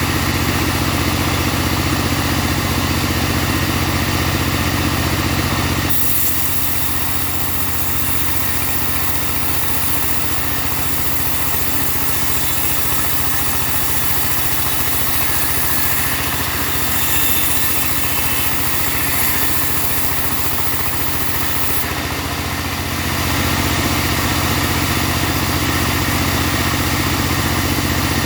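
Engine-driven portable bandsaw sawmill running steadily. From about six seconds in until a little past twenty, a loud high hiss joins it as the band blade cuts through a log, then it falls back to the engine alone.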